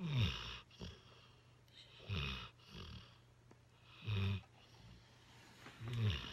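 Mastiff mix dog snoring in its sleep: four snores about two seconds apart, each a low rumble with a breathy hiss.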